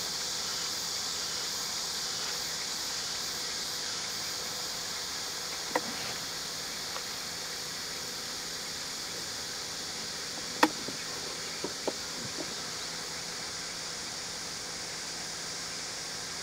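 Steady, high-pitched chorus of night insects such as crickets, with a few faint clicks about six and eleven seconds in.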